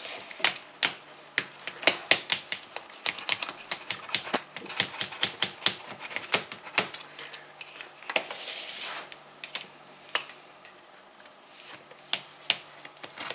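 Knife blade clicking and scraping against the metal side of a springform cake pan as it is run around the rim to loosen the cake. There is a quick, irregular run of sharp clicks, a brief scrape about eight seconds in, and fewer clicks near the end.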